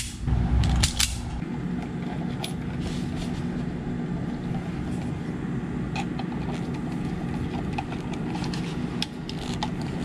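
Hand-tool work on a GFCI outlet: a couple of sharp clicks in the first second or so, then faint ticks and scrapes as a screwdriver tightens wires under the terminal screws, over a steady low hum.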